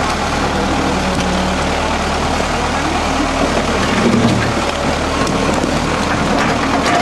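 Heavy loader engine running steadily as its bucket dumps boulders and dirt down the riverbank, with a slight swell about four seconds in as the rocks slide.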